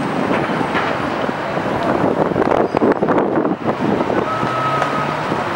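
Busy city intersection traffic noise: cars passing and turning close by, with wind buffeting the microphone. A short steady tone sounds about four seconds in.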